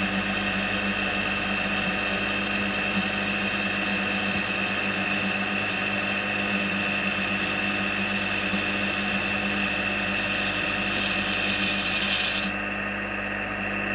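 Milling machine running steadily, drilling a bolt hole through the smoke box of a 4 1/2 inch scale Burrell traction engine model. Its high hiss cuts off suddenly near the end, while the motor hum keeps going.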